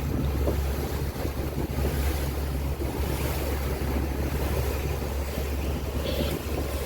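Fishing boat's motor running steadily underway, with wind buffeting the microphone and the rush of water against the hull.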